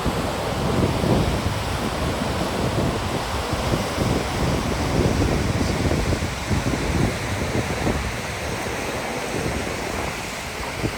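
Gullfoss waterfall roaring as a steady rush of falling water, with wind buffeting the microphone in irregular low gusts.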